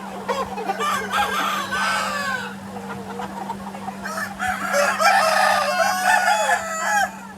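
A flock of free-range chickens clucking and calling, many birds at once, the calls overlapping in two busier spells, the second the louder, with a steady low hum beneath.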